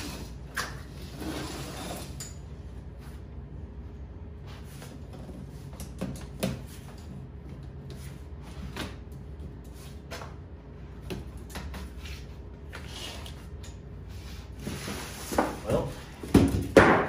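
Folding camping cot being unfolded and set up by hand: scattered clicks and knocks from its metal frame and rustling of its fabric bed, with louder knocks and rustling near the end.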